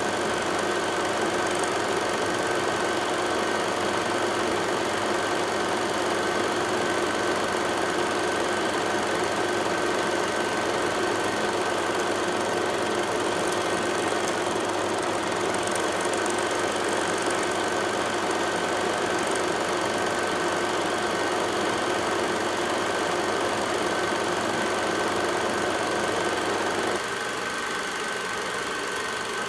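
Steady mechanical hum with a few constant tones, like a motor or engine running evenly. It drops slightly in level and loses its low end about 27 seconds in.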